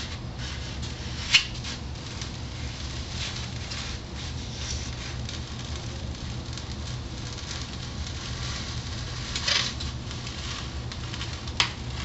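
Foam block being slid and rubbed across the table of a hot-wire foam cutter as it is pushed through the wire, giving a rough scraping, squeaky rustle over a steady low hum, with three short sharp clicks, one early and two near the end.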